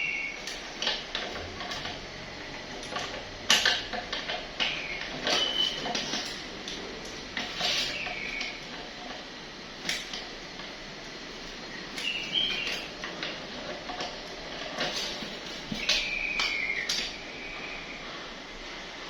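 Tools and small metal parts clicking, knocking and scraping as a welding machine is taken apart and worked on, irregularly throughout, with several short high squeaks.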